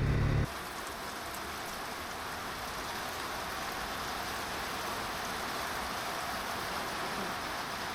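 Music cuts off about half a second in, leaving steady falling rain.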